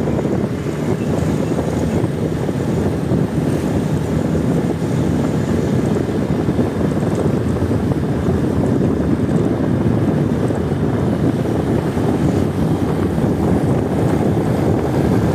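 Steady low rumbling noise of wind buffeting the microphone, with no music or clear tones.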